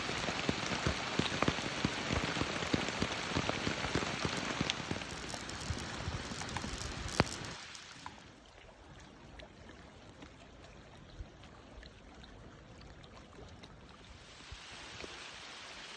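Rain falling on a surface, with many separate drop hits. It eases about halfway through and picks up again near the end.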